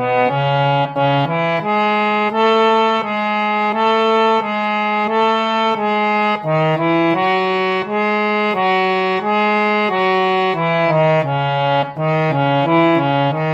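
Instrumental ringtone tune: a reedy, accordion- or sax-like lead melody over a bass line, moving in steady held notes.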